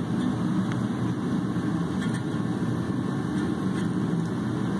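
Steady low machine hum in the shop, with a few faint light clicks as steel main bearing shells are rolled into the engine block's bearing bores.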